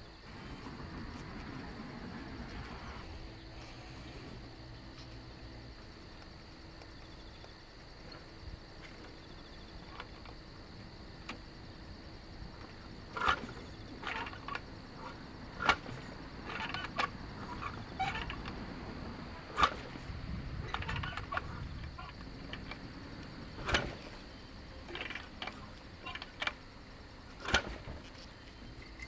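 Kick starter of a 1972 Harley-Davidson Sportster XLCH V-twin kicked five times, about every four seconds, each stroke a sharp clunk as the engine turns over without firing: dry kicks with the ignition off and throttle wide open to prime the cylinders. Insects drone steadily behind.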